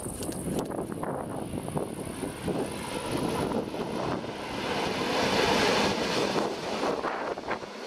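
A Rhaetian Railway Ge 4/4 II electric locomotive hauling old passenger coaches running past on narrow-gauge track, its motor hum mixed with wheel-on-rail noise. The noise swells as the locomotive comes closest, about five to six seconds in, and eases after.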